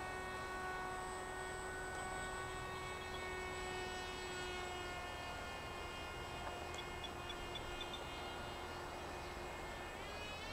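Electric motor and propeller of a Z84 flying wing droning in flight, the pitch sinking slightly, then rising quickly near the end as the throttle is opened.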